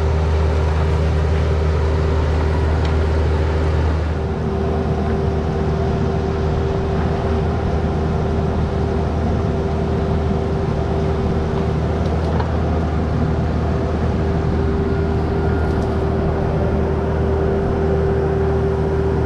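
Bobcat E26 mini excavator running steadily while digging, its engine drone joined by a constant high whine; the engine note shifts about four seconds in.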